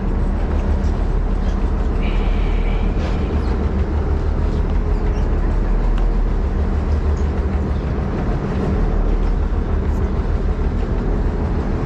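Charter fishing boat's engine running with a steady low rumble.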